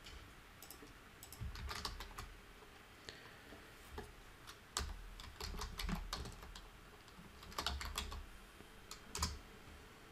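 Computer keyboard typing in several short bursts of keystrokes, entering a file name.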